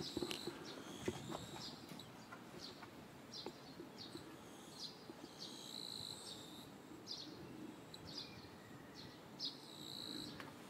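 A bird calling over and over outdoors: short high chirps every half second or so, with a couple of longer held notes, over a faint background hum of the surroundings.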